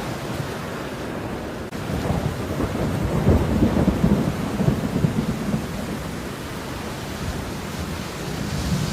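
Steady rain with a low rumble of thunder that swells about two seconds in and dies away by about six seconds.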